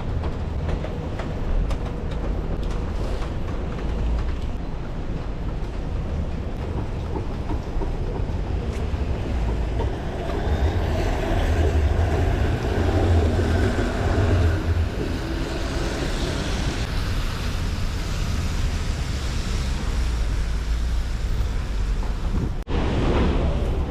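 City street traffic noise, a steady rumble, with a vehicle passing and growing louder about ten to sixteen seconds in.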